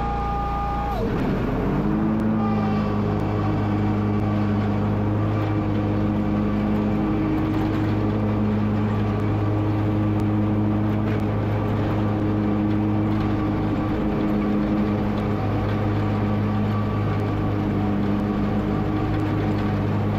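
Hustler FasTrak SDX zero-turn mower's engine running under way. Its pitch drops about a second in, then it holds a steady hum.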